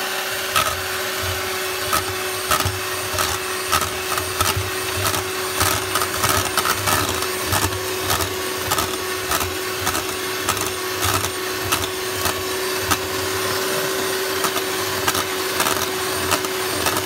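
Electric hand mixer running at a steady speed with a constant whine, its beaters churning a thick butter mixture and knocking irregularly against a stainless steel bowl.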